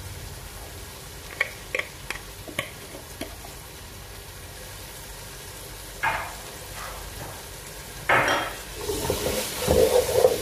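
A few sharp taps as seasoning is shaken from a glass jar over a pot, then, from about eight seconds in, a wooden spatula stirring thick tomato and corn sauce in a cooking pot, scraping the bottom as the sauce sizzles.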